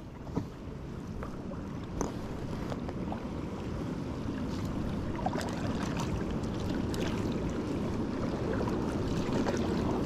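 Rushing water of river rapids, a steady wash that slowly grows louder, with a few light knocks.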